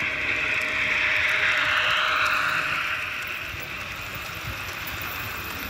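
Model electric train, a locomotive hauling passenger coaches, running past on the layout track: a running noise of motor and wheels on the rails that grows louder over the first two seconds, then fades as the coaches roll by.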